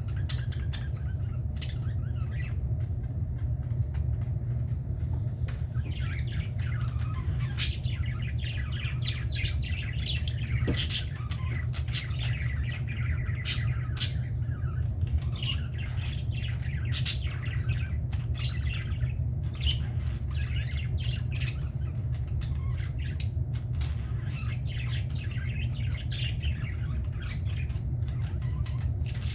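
A flock of budgerigars chattering continuously: warbling chirps with sharp short squawks scattered throughout, over a steady low hum.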